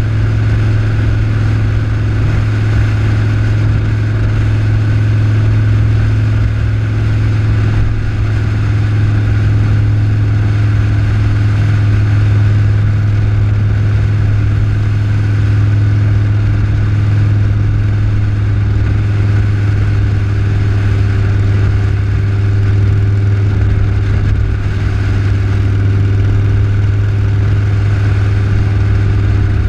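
Steady drone of vehicle engine and road noise at an even cruising speed on a highway, with a strong low hum and no change in pace.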